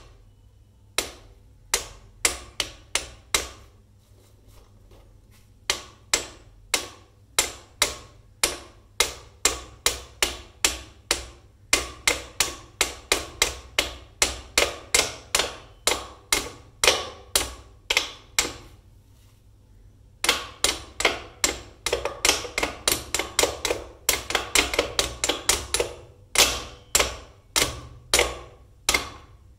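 Small wooden toy mallets knocking the pegs of a wooden pound-a-peg bench: a long series of sharp wooden taps, a few spaced strikes at first, then quick runs of about two or three a second with short pauses. The taps come faster and closer together in the last third, with two mallets going.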